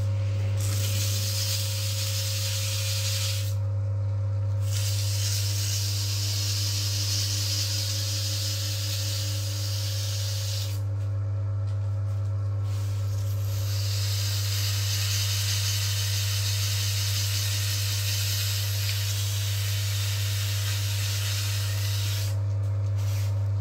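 Electric motor of an oil friction-test stand switching on and running with a loud, steady hum. Over it is a high hissing scrape as the scuffed test piece is cleaned off on the spinning stand, which stops briefly about four seconds in, again around eleven to thirteen seconds in, and near the end.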